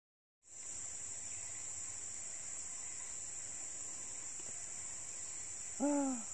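Steady high-pitched insect drone that comes in abruptly about half a second in after a moment of silence. Near the end, one short call with a rising-then-falling pitch.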